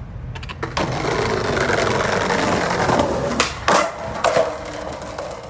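Skateboard wheels rolling, then the tail popping and the board clacking and landing in a few sharp hits a little past three seconds in, a skater trying a trick.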